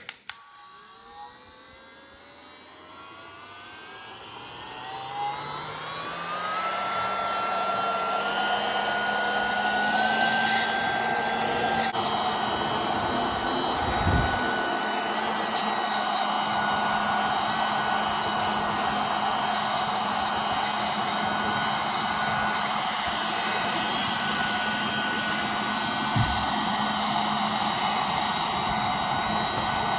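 A rechargeable mini keyboard vacuum cleaner is switched on. Its small motor spins up with a whine that rises in pitch over the first ten seconds or so, then runs steadily with a high whine over an airy hiss. There are two brief low bumps, one midway and one near the end.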